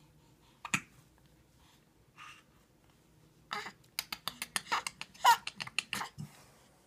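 A baby's single short hiccup about a second in, then from about three and a half seconds a rapid run of smacking kisses mixed with brief high baby vocal sounds.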